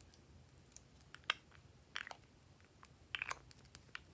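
Scattered soft clicks and crackles of slime being worked with a plastic spatula while small plastic pots are handled, the loudest crack about a second in.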